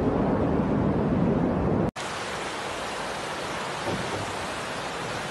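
Floodwater rushing through a building, a loud steady rush heavy in the low end. It cuts off abruptly about two seconds in, and a quieter steady hiss of water follows.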